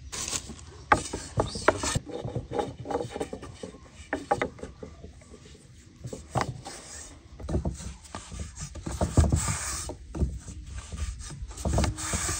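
A long thin wooden rolling pin rolling lavash dough out on a floured wooden board: wood knocking and rubbing on wood. Sharp taps and clacks come in the first few seconds, then longer rolling strokes.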